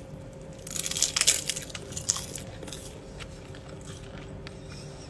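Crunching of a thin, crisp fried sheet being bitten and chewed: a run of crackly crunches for about a second and a half near the start, then only faint chewing ticks.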